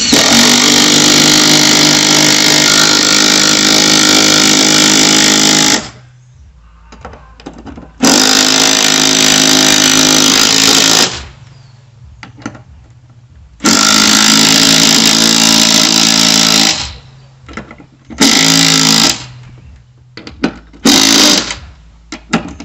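Cordless driver running the mount's bolts into a wooden stud, in long runs of about six, three and three seconds with pauses between, then several short bursts near the end.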